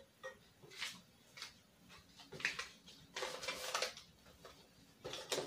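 Canadian polymer banknotes crinkling and rustling as they are picked up and sorted by hand: several short crinkles, the longest and loudest a little past halfway.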